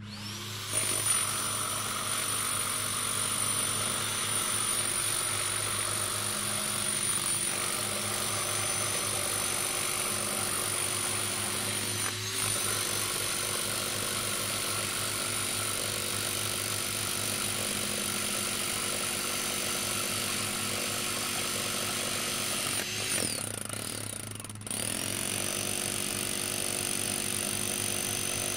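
Electric rotary hammer set to hammer-only, pounding an 8-foot ground rod into the ground. It starts about half a second in and runs steadily, winds down and stops for about two seconds near the end, then starts up again.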